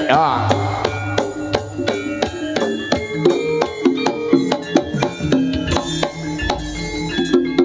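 Jaranan ensemble music: drums with struck gongs and metallophones ringing out in a fast, dense rhythm.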